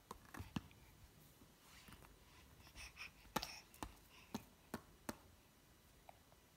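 A baby's hand slapping a small toy soccer ball, making light, irregular pats: three quick ones at the start, then about five more spaced out between three and five seconds in.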